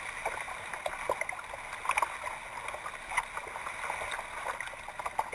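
Kayak being paddled through still swamp water: small splashes and drips from the paddle and water lapping at the hull. It is heard as irregular quick ticks and splashes over a steady hiss.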